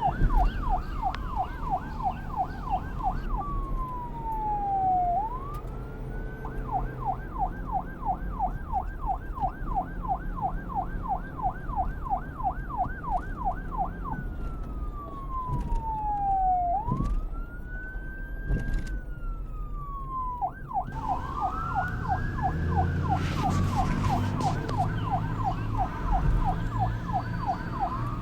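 Electronic police car siren switching between modes: a fast yelp of several up-and-down cycles a second, long falling then rising sweeps between the yelp runs, and a slow rising and falling wail from about two-thirds of the way in. A low engine or traffic rumble runs beneath it.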